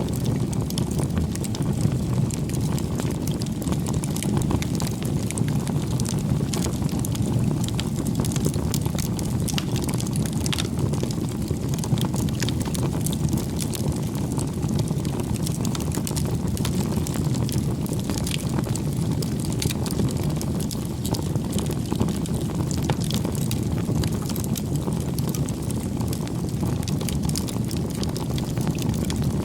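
Bonfire burning: a steady low rush of flames with frequent small crackles and pops scattered throughout.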